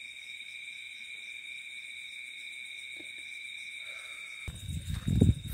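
Night insects, crickets, making a steady high chirring of two continuous tones with a faint fast pulse. About four and a half seconds in, it cuts off abruptly and a low rumbling noise takes over.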